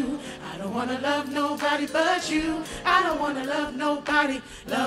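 Gospel choir of men and women singing a cappella in harmony, the voices swelling and dipping in phrases with no instruments underneath.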